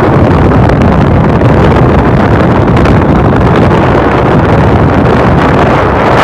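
Steady, loud wind rushing over the microphone, mixed with the drone of a passenger boat's engines under way.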